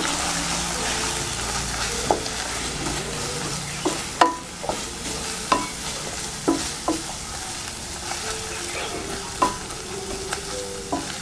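Onion-and-spice masala sizzling as it fries in oil in a metal pan, stirred and scraped with a wooden spatula. The spatula knocks against the pan about nine times, some knocks ringing briefly.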